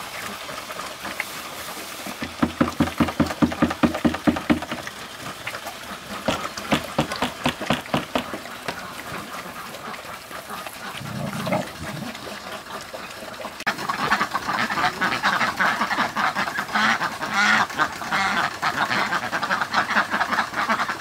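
Domestic ducks quacking in rapid runs of calls: a burst about two seconds in, another around six seconds, and a busier chorus over the last seven seconds.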